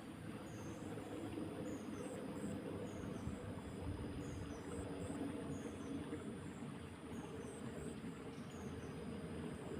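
Insects chirping outdoors, short high chirps repeating about once or twice a second, over a steady low rushing background.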